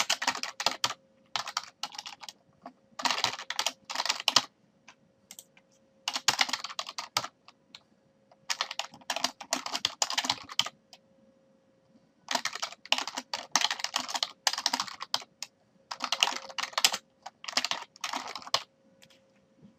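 Computer keyboard typing in quick runs of keystrokes, broken by short pauses of a second or so.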